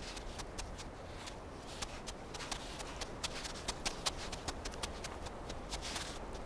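Eurasian otter's paws crunching on crusty snow as it runs across a snowfield: irregular crisp crunches, several a second, with a short soft hiss near the end.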